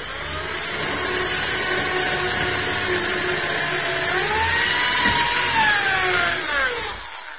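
Handheld electric drill running as it drills into the aluminium edge trim of a plywood hardcase, its motor whine rising in pitch about four seconds in, then winding down and stopping near the end.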